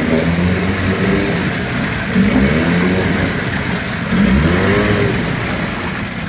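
Johnson 9.9 hp two-cylinder two-stroke outboard running, its throttle blipped about three times, each rev rising and dropping quickly back: instant throttle response. Water churns in the test tank under the engine.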